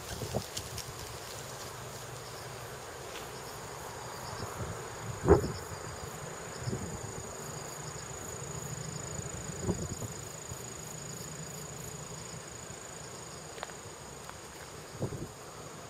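Insects calling in a steady, high-pitched drone in overgrown summer vegetation. A few short soft knocks break in: the loudest about five seconds in, lesser ones near ten and fifteen seconds.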